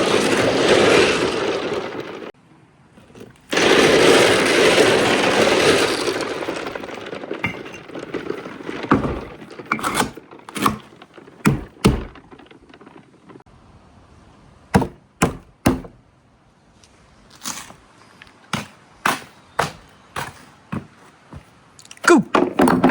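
Marbles rolling down a marble run track with a steady rolling rumble, broken by a short gap, then fading. After that come a series of sharp clicks and clacks as marbles drop and strike the track pieces, some in quick clusters.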